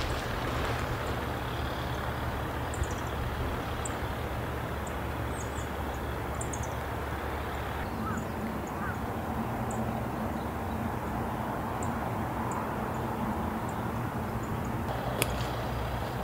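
Steady running noise of a motor vehicle, an even low hum with a wash of road or wind noise. Faint short bird chirps sound over it, and there are two sharp clicks near the end.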